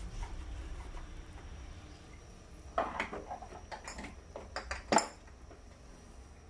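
Metal clinks and knocks of a cooking pot and utensil being handled on the stove: a run of sharp knocks starting about three seconds in, with the loudest one about five seconds in.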